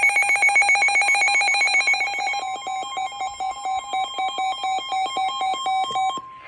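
Emergency weather alert alarm: loud, rapid electronic beeping, joined about two seconds in by the steady single-pitch NOAA Weather Radio warning tone, which carries on alone after the beeping stops near the end.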